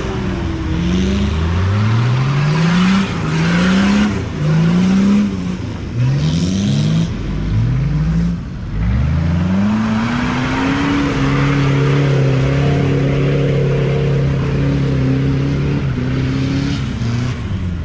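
An off-road 4x4's engine revving in a series of quick rises, then climbing and held at high revs for several seconds, as it is driven through deep mud.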